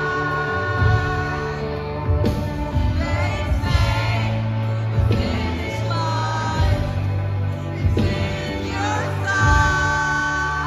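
Live concert music: a band playing with a woman singing lead, holding long sung notes over bass and drums.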